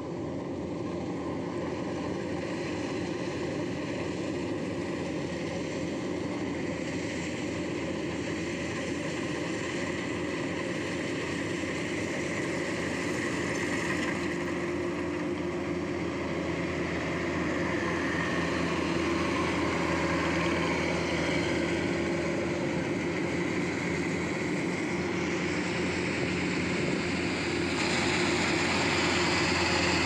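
Kubota DC105X rice combine harvesters running while they harvest: a steady engine drone that grows gradually louder as one combine comes close, rising a step about two-thirds of the way in and again near the end.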